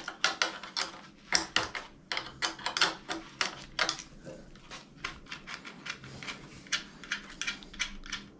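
Irregular sharp metallic clicks and clinks of hand tools and nuts as the heating-element flange of an electric storage water heater is unbolted to check its gasket; the clicks come faster and softer in the second half.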